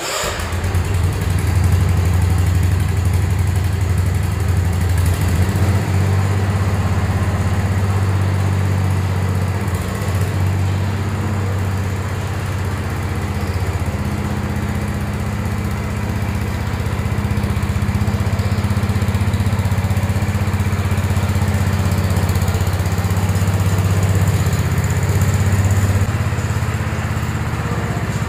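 Wheel Horse C-120 lawn tractor's single-cylinder engine running at a steady speed, with a strong low hum and only slight rises and falls in level.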